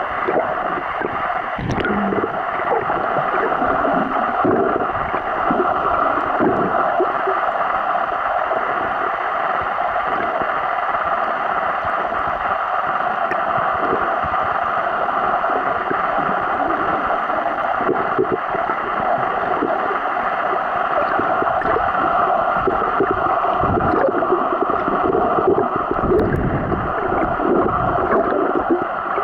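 Underwater water noise picked up by a camera in a waterproof housing: a steady rushing sound with irregular gurgling and sloshing of water.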